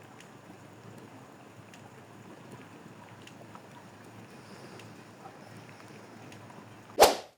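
Faint steady background hiss with a few faint ticks, then a sudden loud bang about seven seconds in that dies away within a fraction of a second, after which the sound cuts off.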